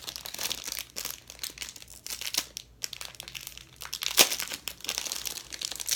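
Packaging crinkling and crackling as a makeup fan brush is handled and unwrapped, in irregular bursts with one sharper crack about four seconds in.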